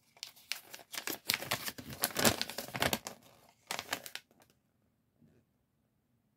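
Paper LEGO instruction sheet being unfolded and smoothed flat: a quick run of crinkling paper rustles for about three seconds, then two shorter rustles.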